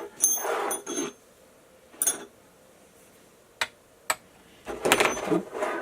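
Small metal hand tools clinking and rattling as someone rummages for an Allen key. There are short bursts of rattling at the start and near the end, with a clink and two sharp clicks in between.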